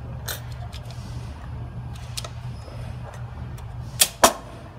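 Light clicks, then two sharp plastic snaps about a quarter-second apart near the end, as an oversized plastic retainer clip is pressed into the coil-spring pack of an MPS6/6DCT450 dual-clutch assembly to take up slack. A steady low hum runs underneath.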